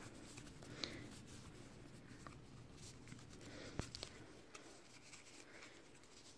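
Near silence: room tone, with a few faint small clicks, one about a second in and a couple close together near four seconds.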